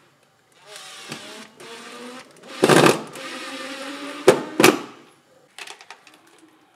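Cordless drill driving screws into a plywood floor. The motor runs in three short bursts, then two sharp clicks come about four and a half seconds in.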